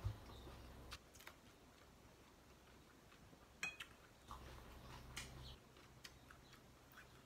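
Quiet eating sounds: scattered light clicks and taps as chopsticks and a plastic spoon work through a glass bowl of noodles, the sharpest right at the start and a quick cluster a little past halfway.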